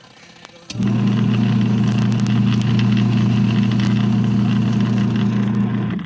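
Mini portable washing machine's wash motor starting up about a second in and turning the plastic pulsator with a loud, steady hum, then stopping near the end. This is one of the alternating forward-and-reverse turns of its wash cycle.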